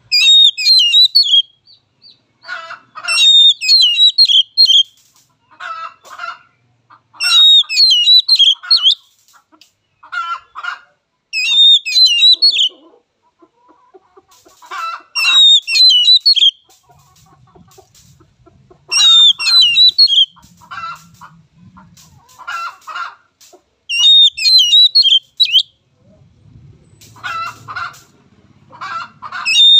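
Oriental magpie-robin singing loud, repeated phrases, about one every four seconds. Each phrase mixes quick high whistled notes with lower, shorter notes.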